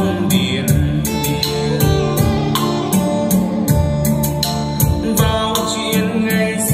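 Instrumental passage of a Vietnamese pop song with a steady drum beat, played through loudspeakers while the Inkel graphic equalizers in the chain are being tested.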